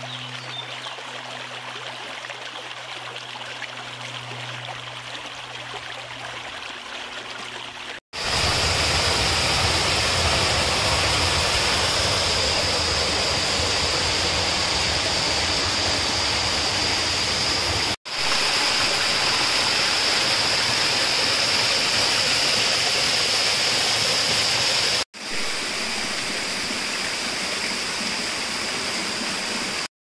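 Stream and waterfall rushing through a rocky gorge. It is quieter for the first eight seconds, then louder after abrupt cuts at about 8, 18 and 25 seconds, with a steady high note over the rush in the louder stretches.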